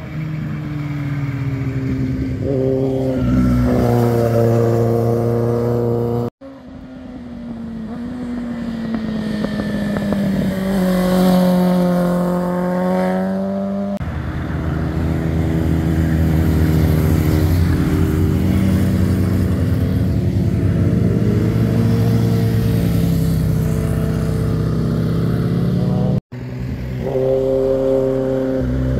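Motorcycle engines passing through a hairpin bend one after another, rising in pitch as the bikes accelerate out of the curve, with cars also passing. The sound breaks off abruptly twice where one pass cuts to the next.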